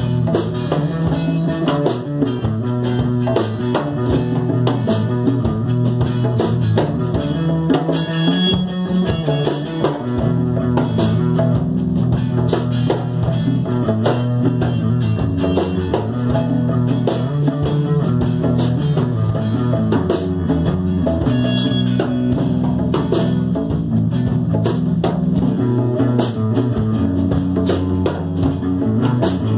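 Instrumental band jam: amplified electric guitars playing sustained riffs over a djembe struck by hand, keeping a steady beat.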